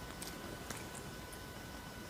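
A crab-eating macaque chewing fruit, heard as a few faint, scattered mouth clicks over a steady background hiss.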